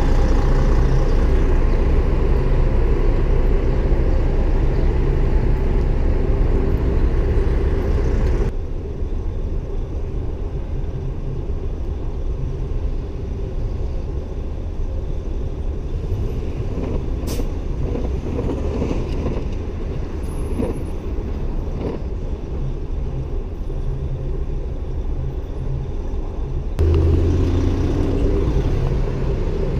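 City street traffic noise from passing cars and engines, a steady rumble that drops abruptly about eight seconds in and jumps back up near the end.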